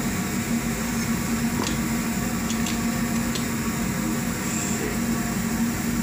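A steady low machine hum over a constant background rush, with a few faint ticks a couple of seconds in.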